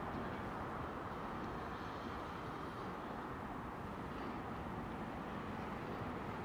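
Steady outdoor background noise, strongest in the low range, with no distinct events.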